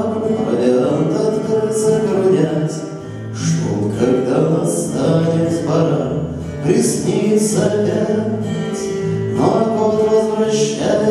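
A man singing a slow song to his own strummed acoustic guitar, with a short lull about three seconds in.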